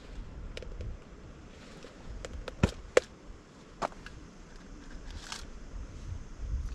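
Handling a bowl of noodles while eating: a few sharp clicks and taps, the two loudest close together near the middle, over a steady low rumble.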